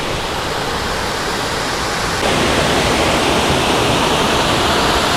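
Waterfall rushing, a steady dense hiss of falling water that suddenly becomes louder and brighter about two seconds in.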